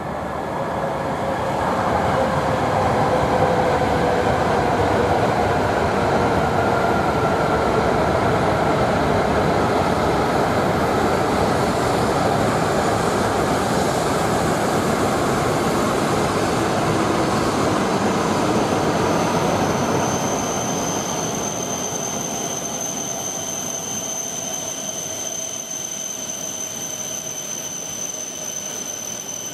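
Coupled E5- and E6-series shinkansen train running past on the far track. The steady run noise carries a whine that glides down in pitch over the first few seconds. About twenty seconds in, a thin, steady high squeal joins it.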